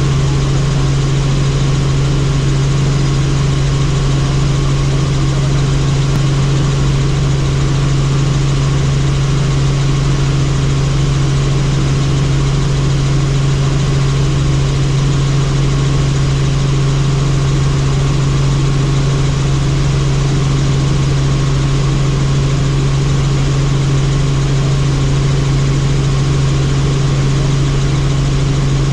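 Helicopter in flight: a loud, steady drone of engine and rotor with a constant low hum that does not change.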